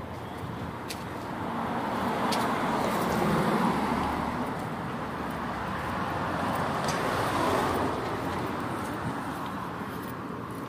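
Cars driving past on a city street: two swells of traffic noise, loudest about three and a half seconds in and again about seven and a half seconds in.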